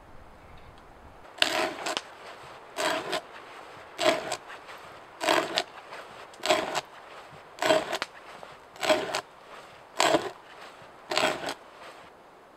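T-handled hand auger boring into a log, turned by hand: nine rasping cutting strokes, one for each turn of the handle, a little more than a second apart.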